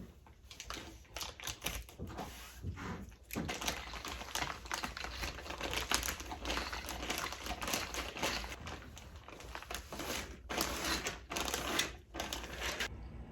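Plastic sleeve being handled and pulled off a track, crinkling and rustling in quick irregular crackles, with brief pauses.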